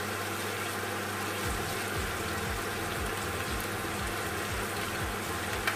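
Steady bubbling hiss of a pot of noodles cooking in boiling salted water on a gas stove, with one light knock near the end.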